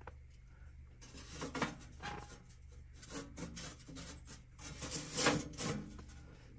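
Sheet-metal parts of a homemade portable tandoor stove scraping and knocking as a metal side panel is worked into place, with irregular rubbing; the louder scrapes come about a second and a half in and again near five seconds.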